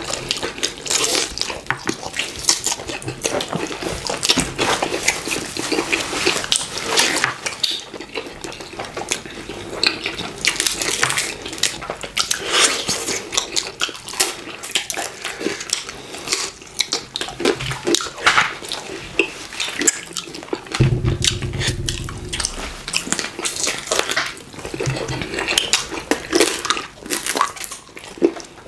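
Wet eating sounds of two people chewing chicken and fufu with okra soup eaten by hand: a constant irregular run of smacks, squelches and sucking clicks.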